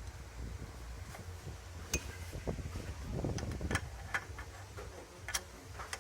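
Scattered metallic clicks and clinks of hand tools on the engine while the new water pump's bolts are being tightened, over a low steady hum.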